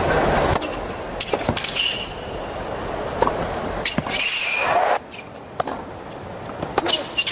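Tennis rally on a hard court: a string of sharp racquet-on-ball strikes and bounces, over stadium crowd noise that drops to a hush about five seconds in.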